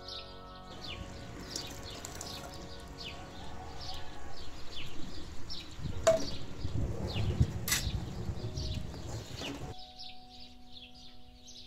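Small birds chirping over and over in short, quick, falling notes, with soft instrumental music at the start and again near the end. In the middle stretch a ladleful of liquid is poured into a pot of stew, with two sharp metal clinks of the ladle on the pot.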